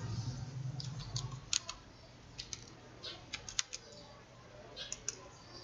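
Typing on a computer keyboard with mouse clicks: scattered sharp key clicks, some in quick clusters of two or three.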